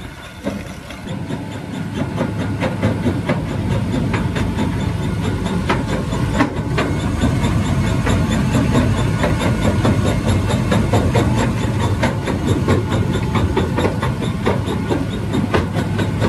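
Tractor-driven Herbst jaw crusher running under load, stone being crushed through its jaws as a continuous rapid clatter of knocks and cracks over the low drone of the machine and the tractor powering it. It grows louder over the first few seconds.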